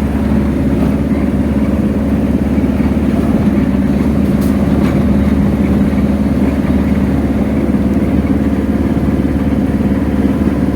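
An engine running steadily with a constant low hum and no change in speed.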